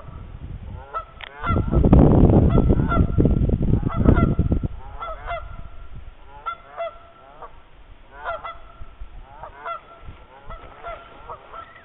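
Geese honking again and again in short calls, hostile alarm honking that the listener takes for geese guarding a nest nearby. From about one and a half to four and a half seconds in, a loud low rumbling noise on the microphone covers the calls.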